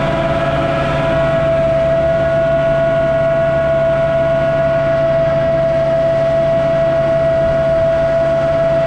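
Concrete mixer truck's diesel engine running at high revs with a steady high whine over a low hum, turning the drum to mix in added water.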